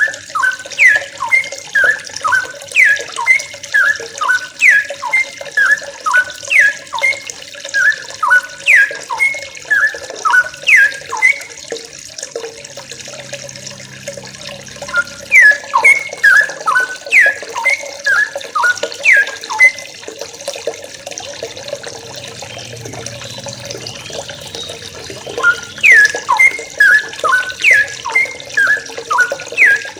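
Young wild yellow-vented bulbuls (trucukan) calling: quick, bubbly, falling chirps repeated in three long runs, with two pauses of a few seconds between them.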